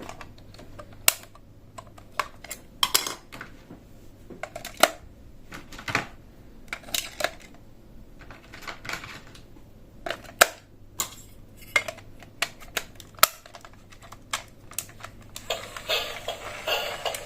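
Irregular sharp clicks and clacks of hard plastic toy pieces being handled, several in quick succession at times. Music comes in near the end.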